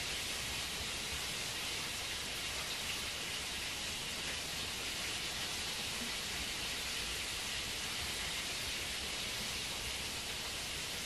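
A steady, even hiss with no pauses or changes, strongest in the upper range.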